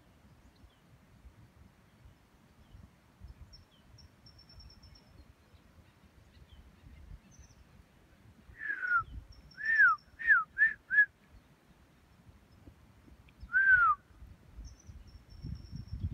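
Clear whistled notes that slide downward: one about nine seconds in, four shorter ones in quick succession just after, and one more near the end. A faint high thin trill sounds now and then behind them.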